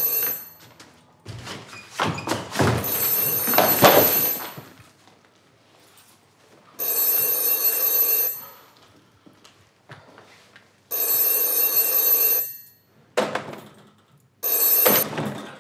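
Corded desk telephone ringing with a bell, about five rings roughly four seconds apart. Knocks and bumps from a door being shut and things being handled mix with the second ring, and the last ring is cut short as the receiver is picked up.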